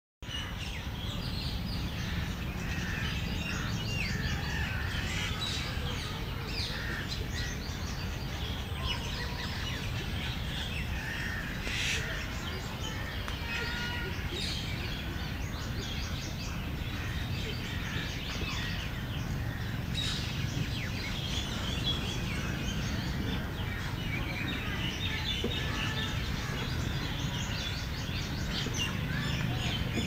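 Many birds chirping and singing at once, a dense chorus of overlapping short calls over a steady low rumble of background noise.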